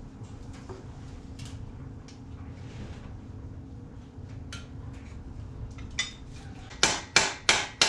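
A hammer tapping on the metal of a Norton Commando 750's cylinder head, after a few seconds of light clicking from hand tools. Near the end come four sharp, loud taps, about three a second, worked around the head to break it loose.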